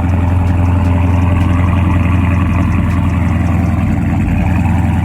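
Dodge Scat Pack's 392 HEMI V8 running, a loud, steady low rumble that cuts in suddenly just before and holds even throughout.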